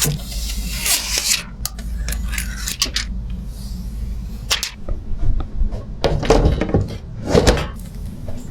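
Handling sounds of hardware: rubbing and scraping with several short knocks, over a steady low hum.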